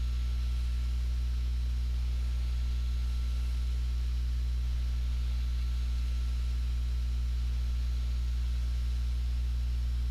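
Steady low electrical hum with a faint hiss, unchanging throughout.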